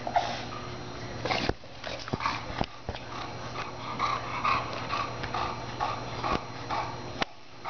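English bulldogs playing, with a run of short, high calls, mostly in the second half, and a few sharp knocks.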